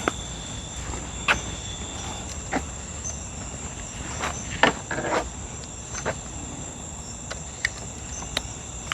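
Footsteps walking over ground at an unhurried pace, with insects trilling steadily in the background.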